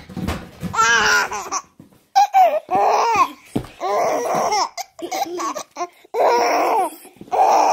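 A toddler laughing hard: about five peals of laughter with short breaks between.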